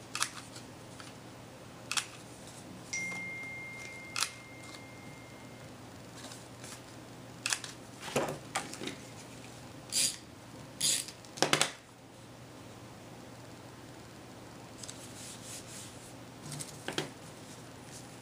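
Handheld corner rounder punch snapping shut as it cuts the corners of a paper card layer: a series of short, sharp clicks a second or two apart, the loudest clacks coming about two-thirds of the way through.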